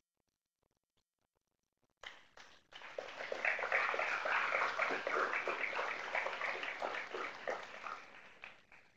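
Audience applauding. It starts abruptly about two seconds in and fades out near the end.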